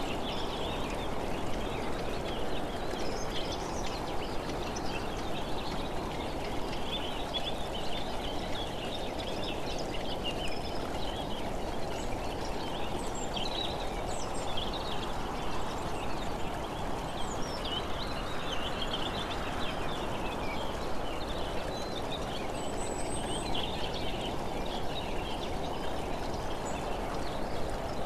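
Steady rush of wind and road noise from travelling along a paved road, with birds chirping throughout over the top.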